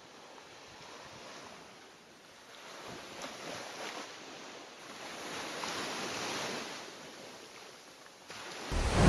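Rushing, surf-like swells of noise that rise and fall twice. Near the end the hip-hop beat comes in abruptly and loud.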